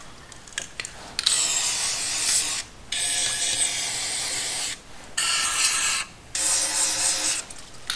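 Aerosol can of rust-preventive spray hissing in four bursts of one to two seconds each, sprayed into the open holes of the engine.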